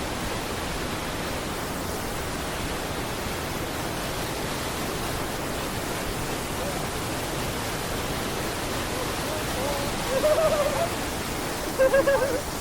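Steady rushing of a waterfall, with two short wavering hoots or whoops from a person's voice about ten and twelve seconds in.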